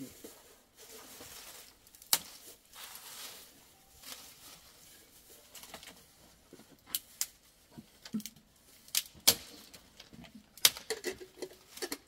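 Dry twigs and kindling being snapped and laid on a small fire: irregular sharp cracks, one about two seconds in and a cluster of them in the second half.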